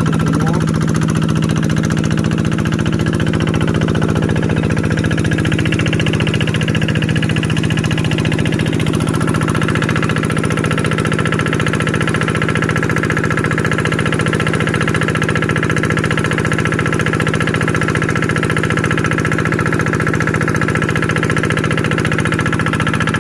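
Engine-driven water pump running steadily while it pumps water into a fish pond, with an even, fast engine beat.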